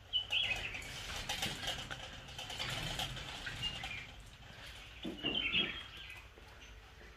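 Soft rustling and a few light clicks as a vervet monkey climbs on the chain-link cage mesh, with brief bird chirps at the start and about five seconds in.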